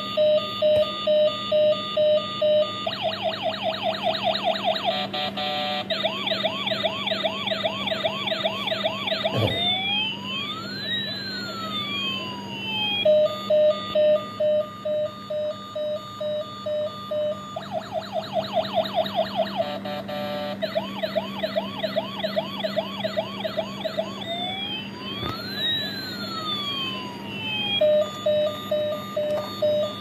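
Battery-powered toy ambulance's electronic siren sounding through its repeating cycle: quick beeping, a fast warble, a run of rising yelps, then a slow wail gliding up and down, before going back to beeping. The cycle comes round twice.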